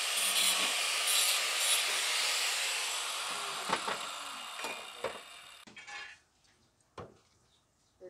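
Electric angle grinder grinding metal, a loud abrasive hiss that dies away as the grinder is switched off and winds down from about three seconds in. A single sharp knock comes near the end.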